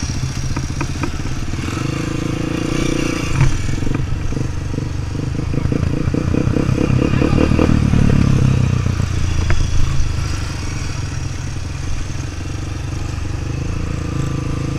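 Motorcycle engine running while riding, growing louder to a peak about eight to nine seconds in, then easing back.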